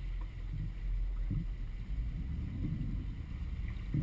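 Low, steady rumble of a motor yacht under way, its engines and hull noise heard from the flybridge.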